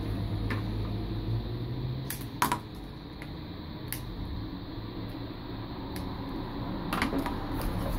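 Scattered sharp clicks and taps of small headphone parts being handled and wire being snipped with scissors on a tabletop, the loudest about two and a half seconds in, over a low steady hum.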